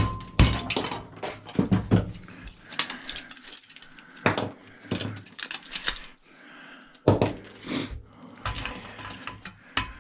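Small metal scrap parts clinking and clattering, handled and dropped one after another while a cash register is taken apart and sorted.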